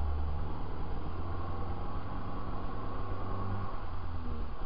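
The dashcam vehicle's engine running at low speed, a steady low drone heard from inside the cab, with tyre and road noise from the wet road.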